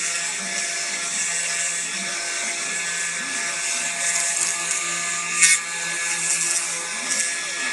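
Small CNC engraving machine's spindle running with its bit carving into a wooden plaque: a steady high-pitched sound with several steady tones over a cutting hiss. There is one brief, louder scrape about five and a half seconds in.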